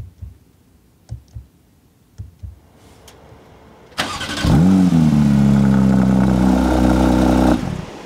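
Steering-wheel shift paddles clicking in pairs, about once a second. Halfway through, the Porsche 911 GT3's naturally aspirated 4.0-litre flat-six starts with a rev flare and settles into a steady idle, which cuts off shortly before the end.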